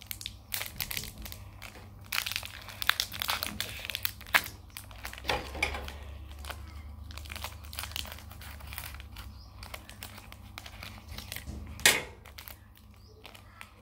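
Foil wrapper of a Pokémon trading-card booster pack crinkling and tearing as it is opened and handled by hand, with many small irregular crackles. One sharp, louder crinkle comes near the end.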